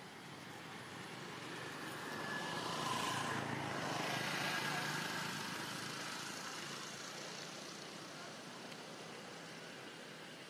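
A vehicle passing by, growing louder to a peak about three to five seconds in, then fading away.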